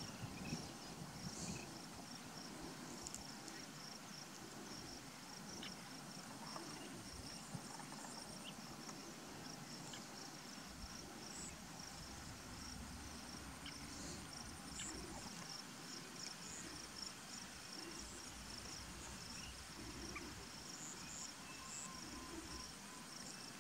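Faint insect chorus: a steady, rapidly pulsing high-pitched chirping trill, with a low rumble underneath.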